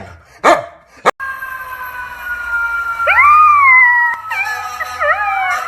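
A dog barks once, then after a cut a long siren-like wail starts, at first steady, then swooping up and down, wavering about twice a second near the end.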